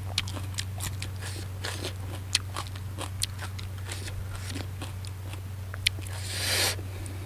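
Close-miked chewing of a mouthful of raw-fish and vegetable salad: irregular wet clicks and crunches, over a steady low electrical hum. A short hiss of breath comes about six and a half seconds in.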